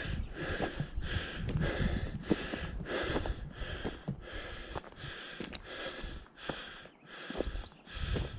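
A hiker climbing a steep dirt trail: rhythmic hard breathing and footfalls, a little over two a second.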